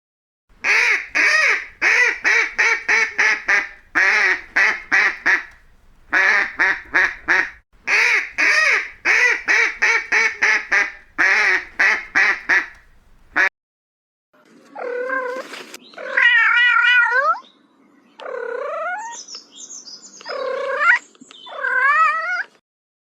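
A duck quacking in rapid runs of short calls for about thirteen seconds. After a brief pause comes a cat meowing, about five long meows that bend in pitch.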